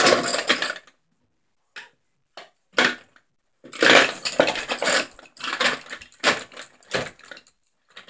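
Close handling noise: irregular rustling, scraping and light knocking of things being moved on or near a wooden table, a few brief clatters at first, then a busy run of them over the second half.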